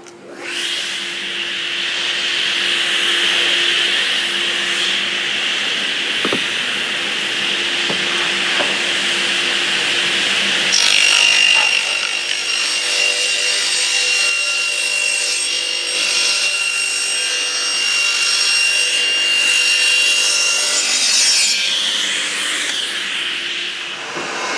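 Table saw ripping a floor board lengthwise, with a continuous sawing rasp over the motor's steady hum. From about eleven seconds in until about twenty-one seconds the cut turns harsher, with a high ringing from the blade, and it dies away near the end.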